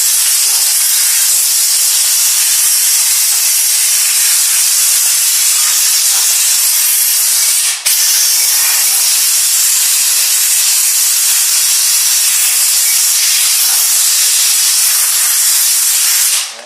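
Compressed air hissing steadily as it blows sawdust and debris out of a dismantled chainsaw, with a brief break about halfway and a sudden stop near the end.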